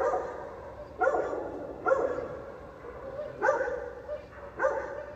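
Dogs barking: five loud single barks spaced irregularly, each trailing off briefly before the next.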